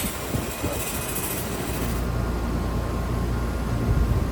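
S7 MIG 200 welder laying short tack welds on thin steel: brief bursts of arc crackle in the first second and a half. A steady low hum follows from about two seconds in.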